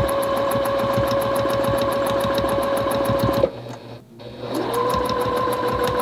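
Juki 2010 domestic sewing machine stitching quickly through a quilt sandwich with a ruler foot, motor whining steadily over a rapid run of stitch ticks. It stops abruptly about three and a half seconds in. About a second later it starts again, its whine rising as it comes up to speed.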